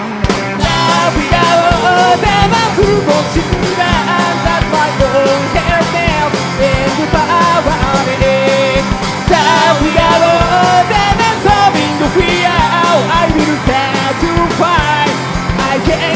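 Live rock band playing loudly: electric guitars and a drum kit, with singing over them.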